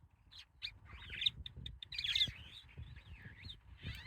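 Songbirds chirping and chattering: a busy run of short, overlapping calls that rise and fall in pitch, starting about a third of a second in.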